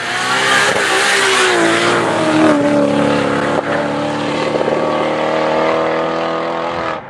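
Drift car engine held at high revs through a sideways slide, with its tyres spinning and smoking; the engine note drops a couple of seconds in and then holds steady. The sound cuts off suddenly near the end.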